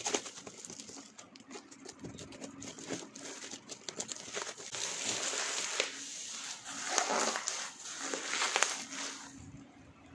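Plastic bubble-wrap mailer crinkling and rustling as it is opened and a cardboard box is pulled out of it, with sharp crackles. It gets louder from about halfway through.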